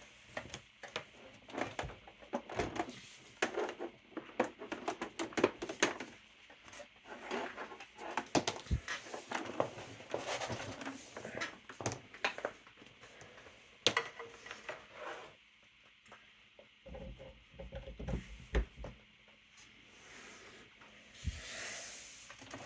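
Irregular light clicks, knocks and rustles from handling a Smith Corona electric typewriter and plugging its power cord into the back of the machine.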